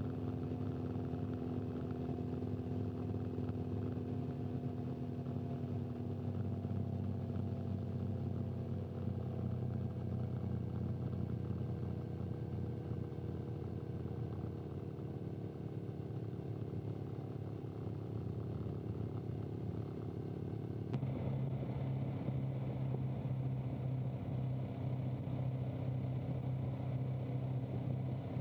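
Motorcycle engine running steadily at low speed close to the microphone. About 21 seconds in the sound cuts abruptly to a different, steady engine note.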